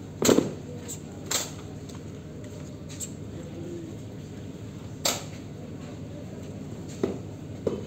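Drill squad's boots stamping and rifles knocking in unison as the cadets come to attention with arms. There is a sharp crack just after the start and another about a second later, then a few fainter single knocks over a low steady background.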